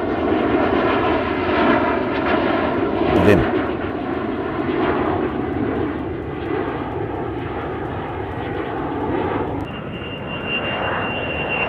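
Steady drone of an aircraft engine, the flying sound given to a blimp. About ten seconds in, a steady high-pitched whine joins it as a jet comes in.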